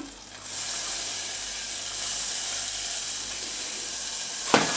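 Finely chopped onions sizzling in hot melted butter in a saucepan, the sizzle starting about half a second in as they go into the pan and running on steadily. A short knock near the end.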